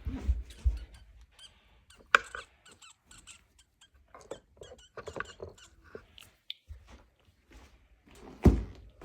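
Dolls and dollhouse pieces being handled and moved: scattered small knocks, taps and scrapes, with a sharp louder knock about two seconds in and another near the end.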